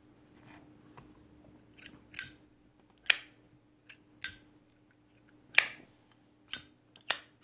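Zippo Windy Girl lighter's hinged lid flicked open and snapped shut several times: sharp metallic clicks, some with the high ringing Zippo ping, described as a nice ping.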